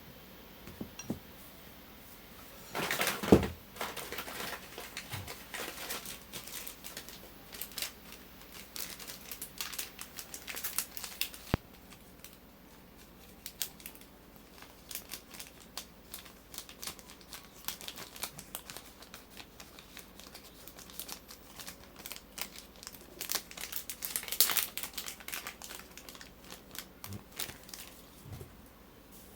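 Packaging being handled and torn open, an irregular run of crinkling and crackling with a loud burst about three seconds in and another about three-quarters of the way through.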